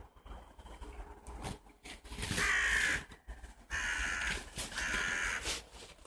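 A crow cawing three times, harsh calls a little under a second each, the first beginning about two seconds in.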